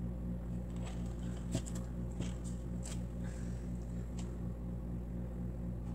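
A steady low electrical hum with a few faint, light clicks and taps from plastic paint cups being handled and set down while acrylic paint is poured into a cup.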